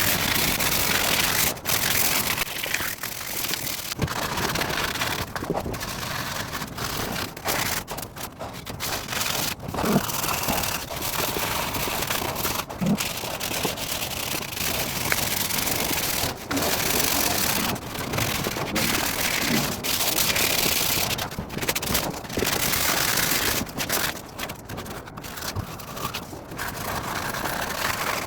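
100-grit sandpaper rubbed by hand over a wooden chair leg: irregular scratchy strokes with short pauses, knocking down the swollen, dog-chewed spots.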